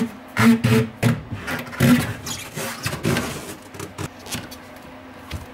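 Handling noises as a spare tire is shifted into place in a carpeted car trunk: irregular thumps and rubbing, loudest about half a second and two seconds in.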